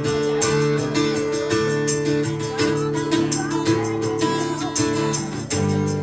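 Live band music led by a strummed acoustic guitar, playing held chords with a steady strumming rhythm; a fuller, louder chord comes in near the end.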